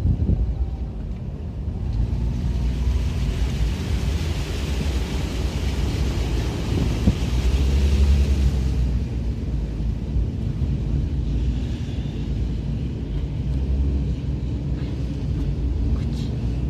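Low, steady rumble of a car driving. A rushing hiss swells about two seconds in and fades about nine seconds in.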